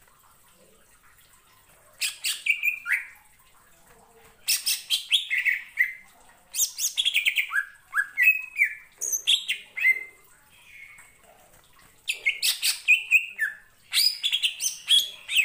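Cucak ijo (green leafbird) singing in about five bursts of rapid chattering notes mixed with short slurred whistles, with brief pauses between the phrases.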